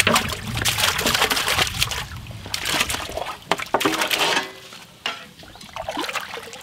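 Chunks of raw beef tipped off an aluminium tray into a large aluminium pot of water, splashing and plopping in, with clinks of metal on metal. Quieter sloshing follows as a ladle stirs the meat in the water.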